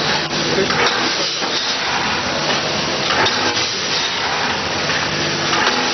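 Seed packaging machine running: a steady, loud hiss with a low hum underneath and a few faint clicks.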